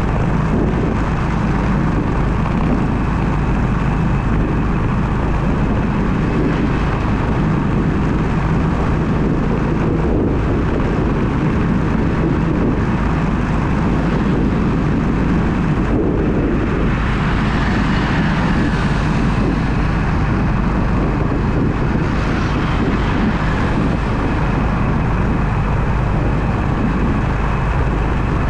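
Car driving, picked up by a dash camera: steady engine and road noise, heaviest at the low end, with a brief swell of higher hiss about seventeen seconds in.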